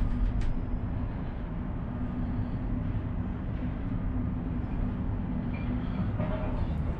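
Steady low rumble and hum of a moving cable car gondola heard from inside the cabin as it travels along its cable, with a few sharp clicks in the first half second.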